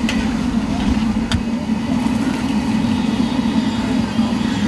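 A steady low mechanical drone, with two sharp clicks about a second apart near the start.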